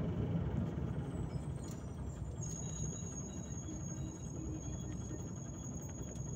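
Volgabus-5270.GH city bus heard from inside while driving: steady engine and road rumble that eases a little, with a thin high whine starting about two and a half seconds in.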